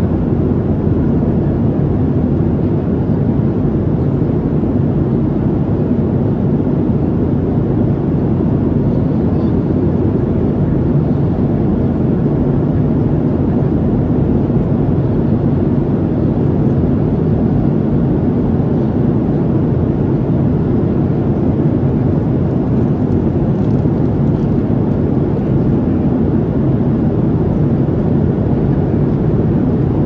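Steady low roar of a Boeing 737-700's CFM56-7B jet engines and airflow heard inside the passenger cabin, with a faint constant hum under it.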